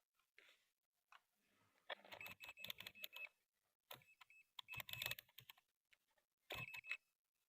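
Faint clicking and rattling of small hard parts and tools being handled during a speaker repair, in three short bursts, with a thin high tone running through each burst.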